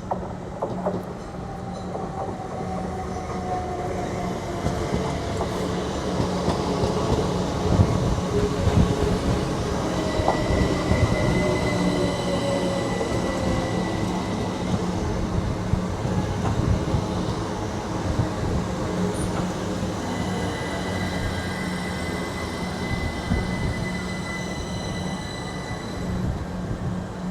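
A train running through the station, a steady heavy rumble with knocks from the wheels, and high-pitched wheel squeal from the rails during the middle and later part.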